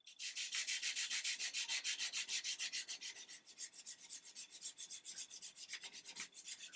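Scotch-Brite abrasive pad scrubbed fast back and forth over a wooden rifle stock, about six hissing strokes a second, a little softer in the second half. The pad is lifting varnish that paint stripper has softened.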